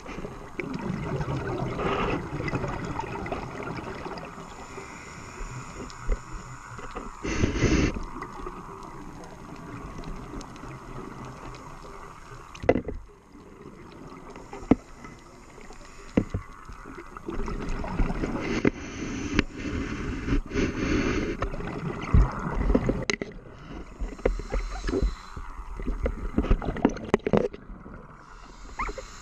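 Underwater sound through a GoPro's waterproof housing: a scuba diver breathing through a regulator, with the bubbles of each exhalation rumbling in stretches of a few seconds and water hissing in between, plus scattered sharp clicks.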